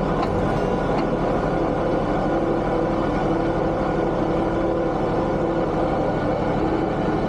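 Tractor engine running steadily at a constant speed, a low even drone with no change in pitch.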